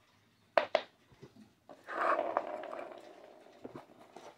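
Plastic travel alarm clock being handled: two quick sharp clicks, then about a second and a half of plastic scraping and rubbing as the clock is pulled out of its case, followed by a few lighter clicks.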